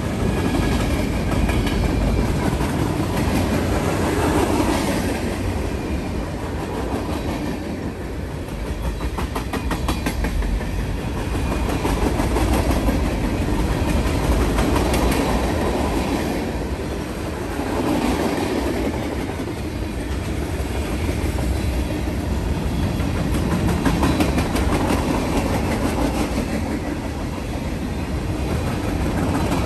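Freight train of covered hopper and tank cars rolling past on steel wheels. It makes a steady rumble with a clickety-clack of wheels over the rail, swelling and easing every few seconds as the cars go by.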